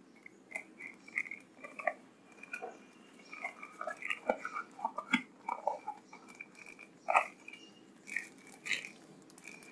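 Small cardboard box from a phone's packaging handled and opened by hand: scattered soft rustles, scrapes and light taps of the card flaps.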